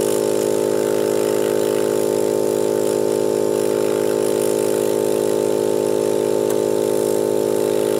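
Surface-mount hot-air rework station running, its blower giving a steady hum with a hiss of air from the small nozzle as it heats surface-mount ferrite bead inductors on a circuit board to desolder them.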